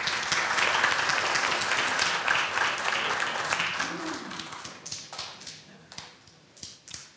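A small seated audience applauding, dying away about five seconds in to a few scattered claps.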